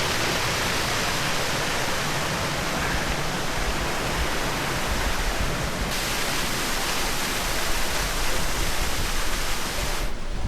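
Rushing water of a steep mountain stream: a steady, loud, even hiss of water pouring over rocks, with a slight change in tone about six seconds in.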